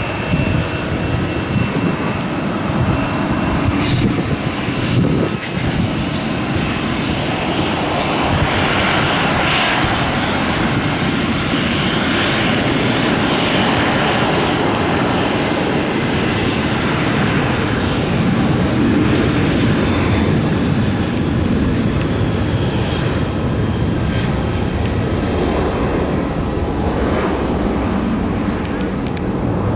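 Boeing 737-800 jet airliner's CFM56-7B turbofan engines at takeoff power: a loud, steady jet roar.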